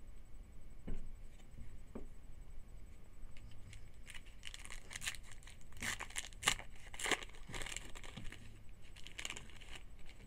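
Trading card pack wrapper being torn open and crinkled: several seconds of crackling, tearing rustle in the second half, after a couple of soft knocks near the start.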